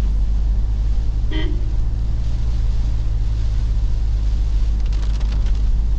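Steady low rumble of a Toyota Innova Crysta driving, with one short horn toot about a second and a half in.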